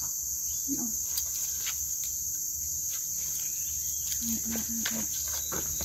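Steady, high-pitched chorus of tropical forest insects, with a few faint clicks.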